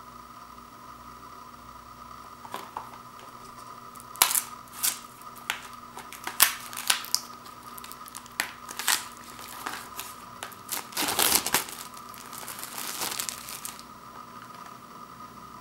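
Plastic shrink wrap being picked at and torn off a Blu-ray case: scattered sharp crackles and snaps, then a few seconds of dense crinkling as the wrap tears away, dying out near the end. A faint steady hum runs underneath.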